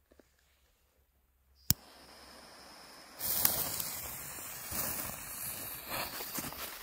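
TP2L cracker firework: a single sharp click about a second and a half in, a faint fizz building, then from about three seconds in the cracker spraying red sparks with a loud steady hiss and rapid crackling.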